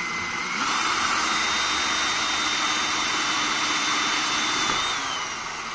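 Power drill boring a small hole into the aluminium 4G63 cylinder head, through to a coolant port. The motor whine steps up in pitch and gets louder about half a second in, holds steady, then drops back lower and quieter near the end.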